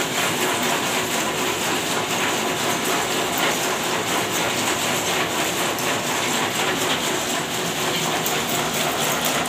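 Candlenut cracking machine running, with a dense, steady clatter of candlenuts rattling and cracking through it.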